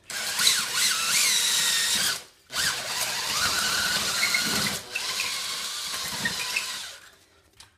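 Cordless drill running the Wall Anka two-part bit into a dot-and-dab wall: the tip drills the plug hole into the brick behind while the wider part forms the hole through the plasterboard. It is a grinding whine that wavers in pitch, running in three spells with brief stops about two seconds in and near five seconds, and it stops shortly before the end.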